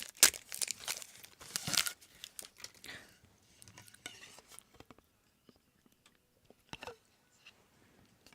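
Crinkling and tearing, as of a food wrapper being torn open and handled. It is loudest in the first two seconds, then only a few scattered soft clicks.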